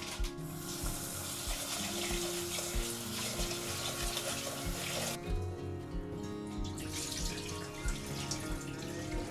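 Water running from a tap into a sink. It stops about five seconds in and runs again a little under two seconds later, over soft background music with a gentle, regular beat.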